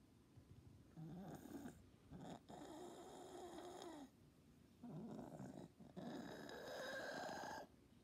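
A cat's faint, noisy breathing: stertor, a low snoring-like throat noise from the upper airway on each breath, over about four breaths with short pauses between them. It is not the high-pitched whistle of stridor.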